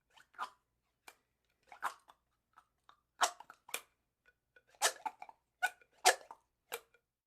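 A drinking straw squeaking in a run of short, irregular squeaks, about a dozen in all, the loudest a little after three seconds in and again near five and six seconds in.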